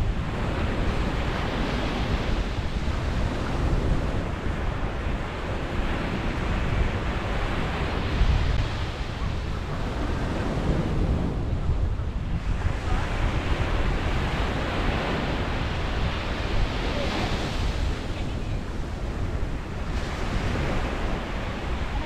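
Ocean surf breaking on a sandy beach, the wash swelling and easing every few seconds as each wave comes in, with wind rumbling on the microphone.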